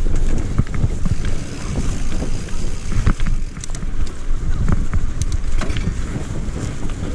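Wind buffeting the microphone of a mountain bike rider in motion, a dense low rumble, with scattered clicks and knocks from the bike rattling over rough ground.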